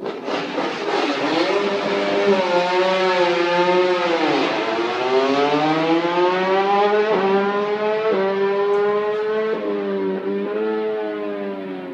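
MotoGP racing motorcycle engine at high revs. Its pitch sinks to a low point about four seconds in, as when braking for a corner, then climbs again with several small jumps at the gear changes.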